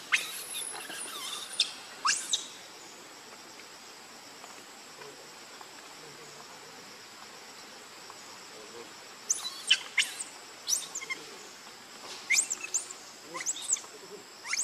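Short, high-pitched chirps and squeaks in two clusters: one during the first two seconds, another from about nine seconds in. Under them runs a faint, steady, high insect hum.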